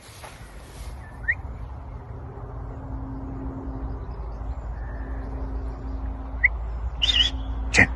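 A few short, rising bird chirps over a low, steady rumble, with a louder, brighter bird call and a click near the end.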